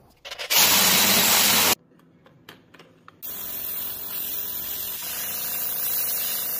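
A rotary sanding wheel runs loudly for about a second, followed by a few light clicks. Then an airbrush sprays paint with a steady hiss, with a faint hum joining about two seconds later.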